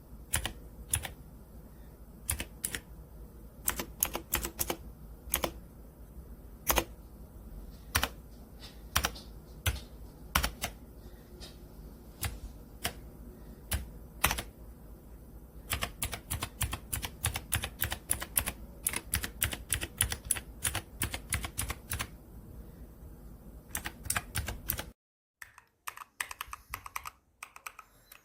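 Dierya T68SE 60% mechanical keyboard with blue switches being typed on, keystroke by keystroke. The keystrokes come scattered at first, then run in a fast, continuous stretch of typing for about ten seconds. Near the end the background drops away suddenly and a few quieter keystrokes follow.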